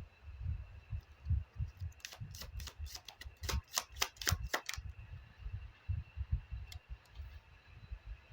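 A deck of fortune-telling cards being shuffled by hand: a quick run of about a dozen sharp snaps over two or three seconds, with soft low handling thumps throughout.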